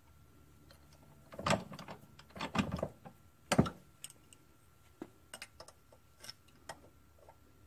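Small metal engine governor parts and hand tools clinking and knocking on a workbench as they are handled. The clicks come in scattered clusters, with the loudest single knock about three and a half seconds in and lighter ticks after it.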